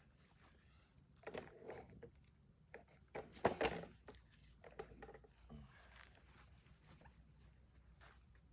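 Crickets trilling in one steady high-pitched tone, with a few brief knocks and rustles of handling, the loudest about three and a half seconds in.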